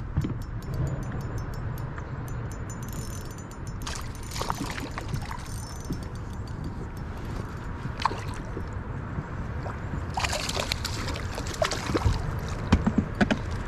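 Hooked skipjack herring being reeled to a small boat and splashing at the surface near the end, over steady water slosh and low wind rumble on the microphone, with a few sharp clicks.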